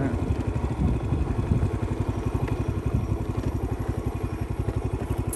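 Small motorbike engine idling or ticking over at low speed, a steady even putter.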